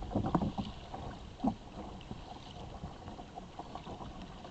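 Water washing and slapping against the hull of an Ocean Kayak Malibu Two XL under way: a few splashes in the first second and a half, then a steady wash.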